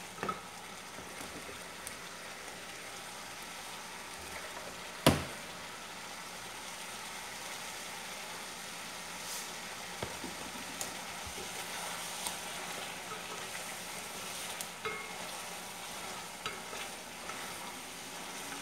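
Chicken and spices sizzling steadily in a steaming pot while a wooden spoon stirs and scrapes against the pot. There is one sharp knock about five seconds in and a few lighter clicks after it.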